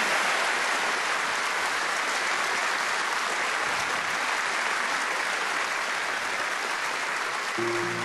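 Audience applauding steadily. Near the end, music begins to play under the clapping.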